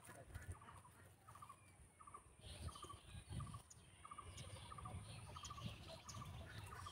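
Faint animal calls: short rattling bursts repeated about twice a second, over a low rumble.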